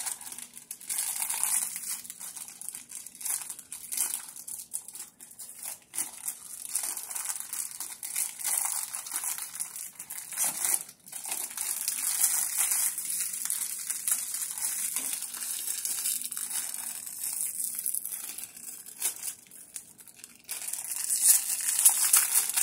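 Plastic blind-bag wrappers of toy figures being crinkled and torn open by hand, a continuous uneven crackle that gets louder near the end.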